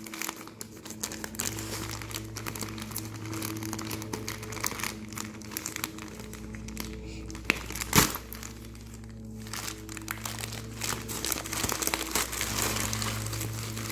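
Packaging crinkling and rustling as a parcel is unwrapped, over background music, with one sharp click about eight seconds in.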